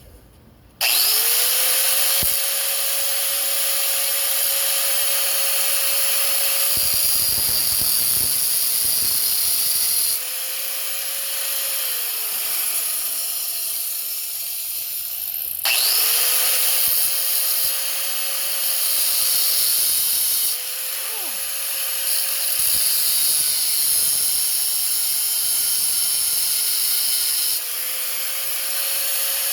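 High-speed rotary cutting tool whining as it cuts a diagonal groove across a steel bearing inner race on a chainsaw crankshaft. It spins up about a second in, runs at a steady high whine with the level shifting as it bites, winds down and stops about halfway through, then spins up and cuts again.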